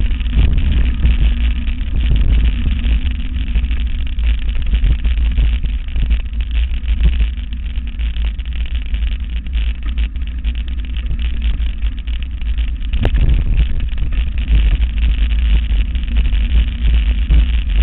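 Wind rumbling on the microphone of a mountain bike moving fast over a rough dirt trail, with the rattle of the ride over the ground. A single sharp knock about two-thirds of the way through.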